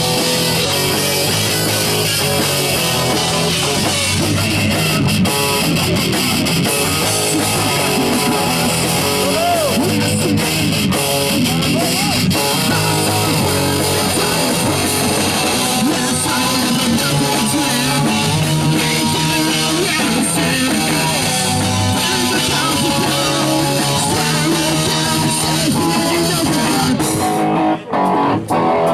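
Hardcore punk band playing live: loud, guitar-driven rock with a full band. Near the end the playing breaks into short stop-start hits with brief gaps between them.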